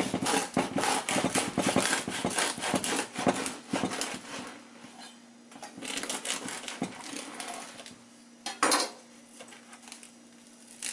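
Serrated bread knife sawing through the crisp crust of a sourdough loaf: dense crackling, rasping strokes for about four seconds, then again briefly between six and seven seconds in. A single sharp knock near the end.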